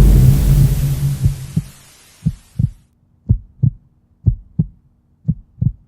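A loud rumbling noise fades away over the first two seconds, giving way to a heartbeat sound effect: pairs of low thumps, lub-dub, repeating about once a second.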